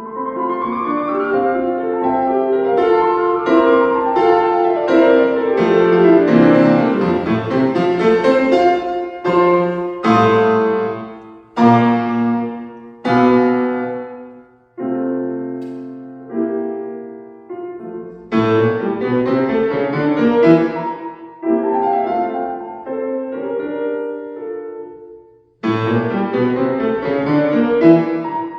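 Solo piano playing classical music: a dense flowing passage, then a string of separate loud chords a second or two apart, each left to ring and die away. Near the end the playing stops briefly, then resumes with full chords.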